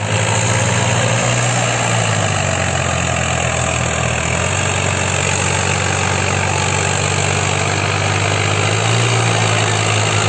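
Tractor diesel engines running steadily under load as two tractors pull tillage implements through worked soil. The low engine note shifts a little a few times.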